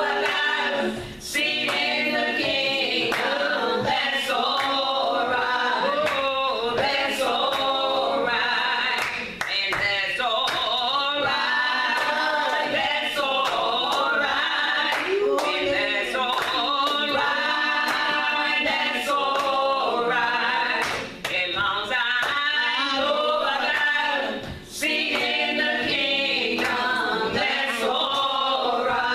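Church choir singing, several voices together, with occasional claps.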